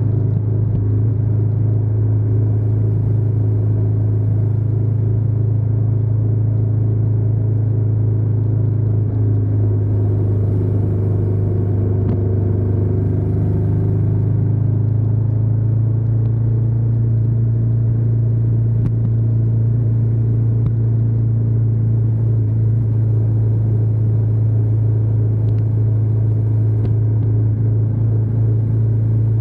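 Ducati Diavel 1260 S's V-twin engine running steadily while riding, a deep continuous hum with a low rumble, heard from a camera mounted at the back of the motorcycle.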